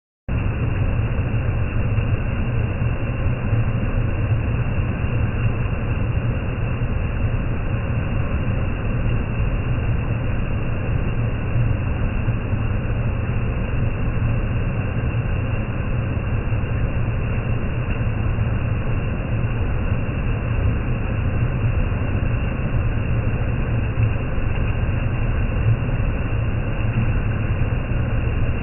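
Waterfall in heavy rainy-season flow: a steady, deep rush of falling water.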